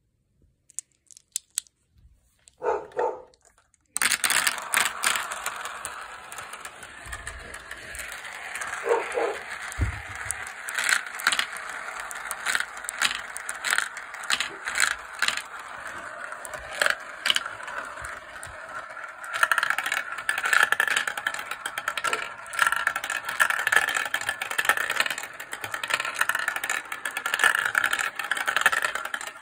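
Cat's-eye glass marbles rolling and rattling through a plastic marble run, with many sharp clicks as they hit the track and each other. After a few faint clicks, the rolling starts about four seconds in, and a steady whirring grows louder past the halfway point as marbles circle the funnel bowls.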